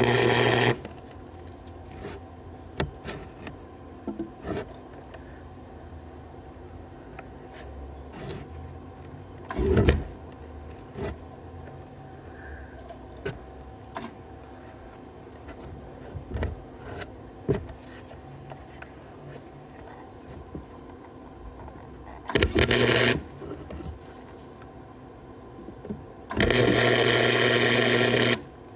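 Electric arc welding in short bursts: the arc crackles and buzzes for under a second right at the start, again briefly about two-thirds of the way in, and for about two seconds near the end. Between bursts the welder hums steadily under scattered clicks and knocks of handling.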